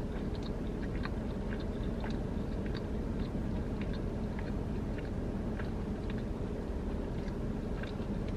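Close-up chewing of a sauced fried boneless chicken wing: small, irregular wet mouth clicks, a few a second, over a steady low hum.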